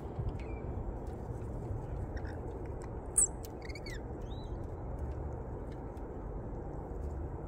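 Birds feeding at a seed feeder: scattered small clicks and a few brief high chirps and squeaks, the loudest just after three seconds in, over a steady low outdoor rumble.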